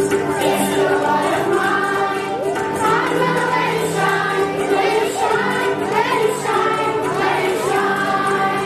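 A group of children singing together as a choir, with musical accompaniment under the voices.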